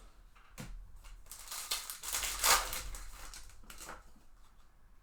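A foil trading-card pack wrapper is crinkled and torn open, a few seconds of crackling rustle that peaks near the middle, with cards being handled.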